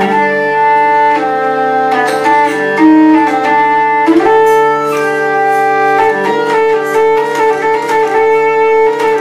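Hurdy-gurdy played with the wheel cranked steadily: a sustained bass drone under a melody played on the keys, the melody notes changing every half-second or so.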